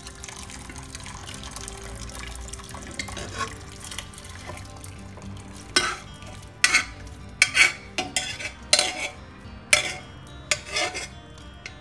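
Cooked potato chunks and beef in their cooking liquid are poured from an aluminium pressure cooker into a pot. From about halfway through, a spoon scrapes and knocks inside the cooker to push out the last pieces, making a run of sharp metal clinks that are the loudest sounds. Faint background music plays underneath.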